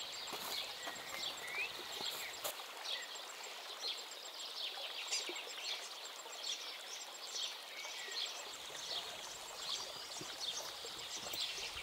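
Forest birds chirping and calling, many short high chirps with a few quick whistled glides and a high, rapid trill that comes and goes, over a soft steady hiss of outdoor ambience.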